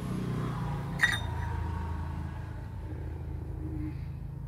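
Steady low hum of a running motor, with one sharp click about a second in.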